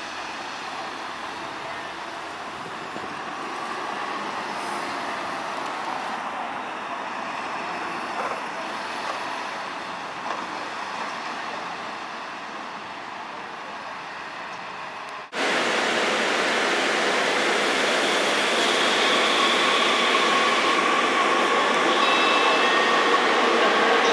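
City street traffic, cars and a bus going by, for about fifteen seconds. Then, after an abrupt cut, a louder Muni Metro light rail train running through an underground station, with a steady hum and several held whining tones.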